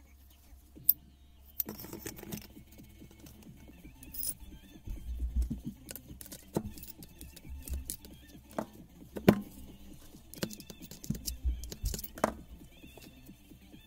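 Steel parts of a Hilti TE 500 breaker clinking and knocking as they are handled and fitted together during reassembly, a circlip and the tool-holder tube among them. Scattered sharp clicks, with a short rattle about two seconds in and the loudest knock about nine seconds in.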